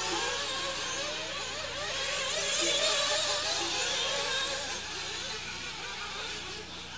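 Several nitro RC buggy engines racing on the track, their high-pitched whine rising and falling as the cars accelerate and brake.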